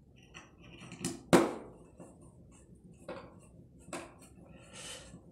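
A handful of sharp clicks and knocks from a screwdriver working at a wall socket's metal faceplate, which is being tightened. The two loudest come close together about a second in, with lighter ones near three and four seconds and a brief soft rustle near the end.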